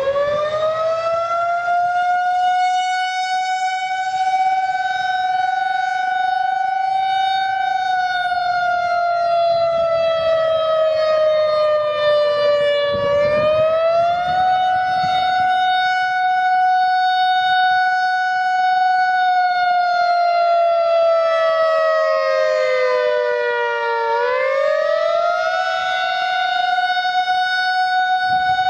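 Outdoor civil defense siren finishing its wind-up in the first couple of seconds, then sounding a steady high tone. Its pitch sags slowly twice, about midway and again later, and climbs quickly back each time.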